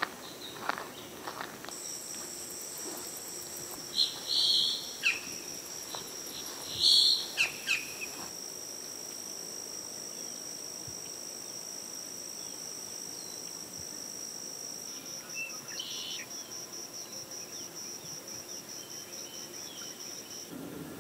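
Insects trill steadily on one high continuous note, which breaks into fast even pulses near the end. A bird gives a few loud, short calls about four and seven seconds in, and a fainter one later.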